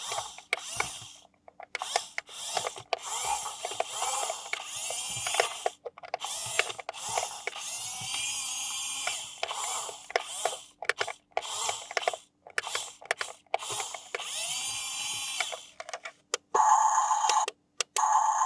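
Small electric motor and gears of an RC toy whirring in many short bursts, some rising and falling in pitch as they spin up and down.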